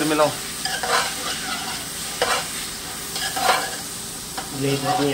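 A spoon stirring and scraping chopped tomatoes and onions frying in a pressure cooker, over a steady sizzle, with three scraping strokes about a second apart.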